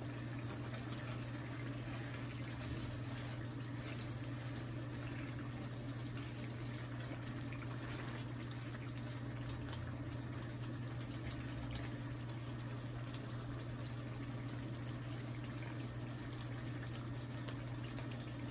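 A pan of chicken roast curry simmering and bubbling while it is stirred with a wooden spatula, with a few faint ticks, over a steady low hum.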